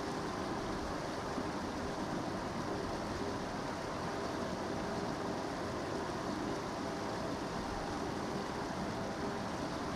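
Running water of the River Tawe: a steady, unbroken rush of flowing river water.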